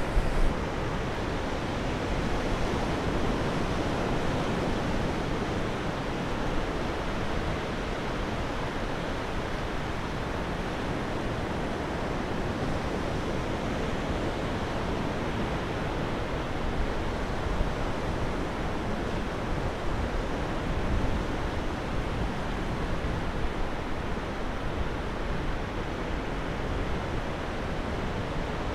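Steady wash of sea surf breaking on a sandy beach, with low wind rumble on the microphone. A couple of brief knocks at the very start.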